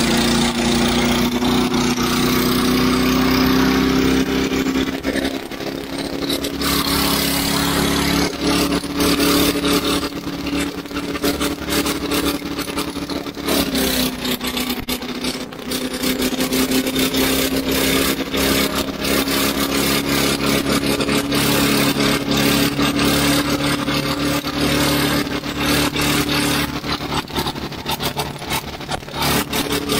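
Briggs & Stratton Quantum single-cylinder four-stroke lawn mower engine running steadily at high speed with its cooling fan shroud removed, being run hot on purpose. Its pitch sags slightly about halfway through, and many irregular sharp clicks sound over the running.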